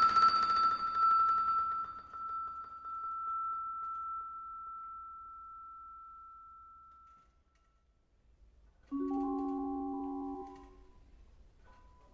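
Solo vibraphone: a loud high note rings and slowly fades away over about seven seconds. After a brief silence, a chord of several notes sounds about nine seconds in, rings for a second and a half and dies away, followed by a faint single note near the end.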